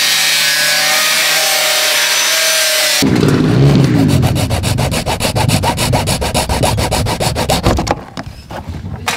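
Angle grinder running as its disc cuts into a plastic bumper grille, with a steady hiss and a slowly falling tone. About three seconds in it gives way abruptly to a small hand saw blade sawing quickly back and forth through the plastic grille slats, which stops about eight seconds in.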